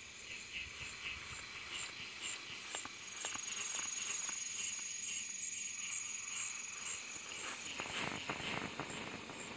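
Night insects chirping in a regular pulse, with a high, steady trill joining about three seconds in. A few rustles and knocks near the end.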